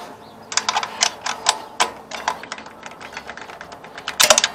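Ratchet wrench clicking in short runs as the two carburetor mounting nuts on a riding mower's Briggs & Stratton engine are tightened. The loudest is a fast run of clicks near the end.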